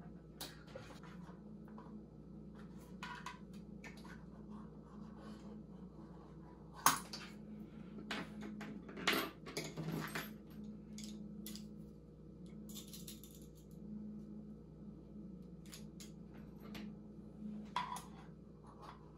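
Small metal tools clinking, tapping and scraping as a wire hook works a seal out of an electric scooter's neck, in scattered light clicks with the sharpest knocks about seven and nine seconds in. A faint steady hum runs underneath.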